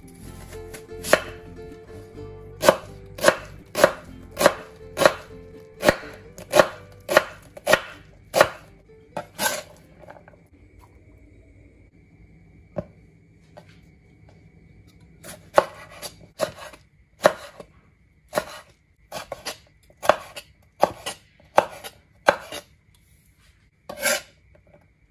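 Chef's knife chopping an onion and then tomatoes on a bamboo cutting board: sharp knocks of the blade on the board, about two a second, in two runs with a pause of several seconds between them.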